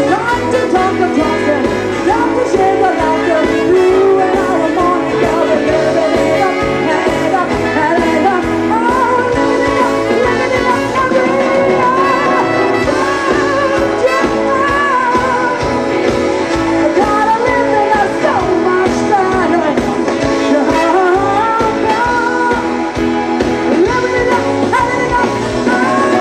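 Live band playing a jazzy soul-pop song with a singer's voice over it, at a medium beat.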